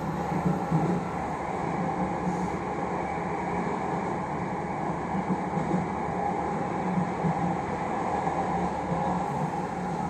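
Jakarta MRT train running between stations, heard inside the passenger car: a steady hum and rumble of the moving train.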